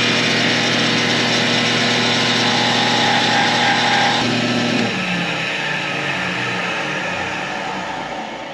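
Electric power-tool motor running at full speed with a steady whine. About four seconds in it is switched off, and its pitch and level fall as it winds down.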